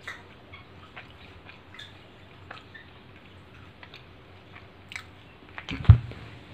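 A person chewing food close to the microphone: scattered small wet clicks. Near the end comes a loud thump and rustle as the phone recording it is moved.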